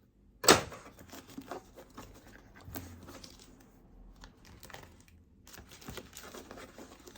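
A knife cutting open a cardboard box's packaging: a sharp click about half a second in, then scattered light scratching, tearing and small ticks.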